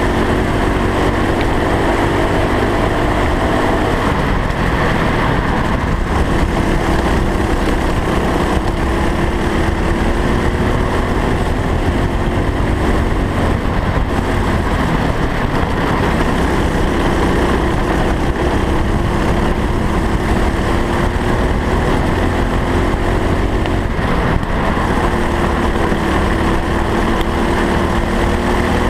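Racing kart engine at speed heard from the kart itself, its note climbing slowly along each straight and dropping back when the driver lifts for the corners, several times over, with a heavy low rumble of wind and vibration on the microphone.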